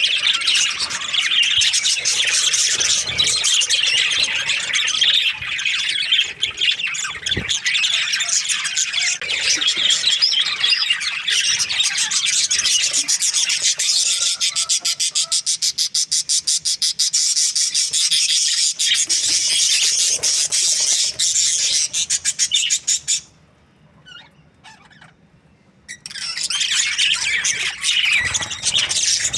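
Several budgerigars chattering and chirping together in a dense, continuous warble of high-pitched notes. The chatter stops abruptly for about three seconds near the end, then picks up again.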